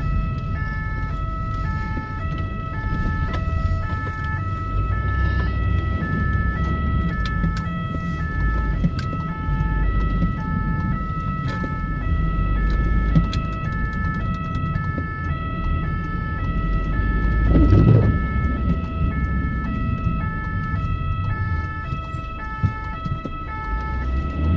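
Ambulance siren in two-tone mode, alternating between a high and a low note, heard from inside the moving ambulance over the low rumble of its engine and tyres on the road. There is a brief louder rush about three-quarters of the way through.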